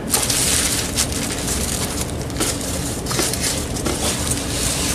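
Plastic packaging crinkling and rustling as hands rummage through a shipping box and lift out a plastic bag, with irregular crackles.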